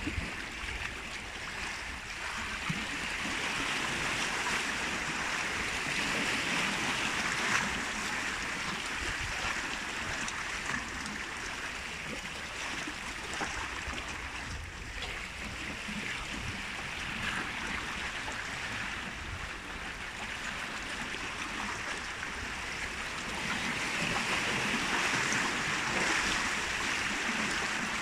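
Sea water washing and splashing among the rocks of a breakwater: a steady rushing that swells twice, once a few seconds in and again near the end, with a few faint ticks.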